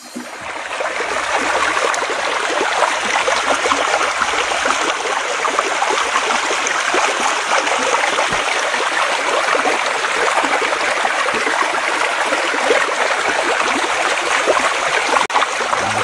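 Stream water rushing and splashing over rocks, a dense steady rush that swells in over the first second.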